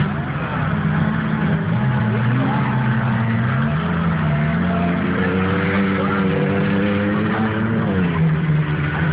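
A motor vehicle engine running, its pitch rising a few seconds in, holding higher, then falling back near the end as the revs ease off.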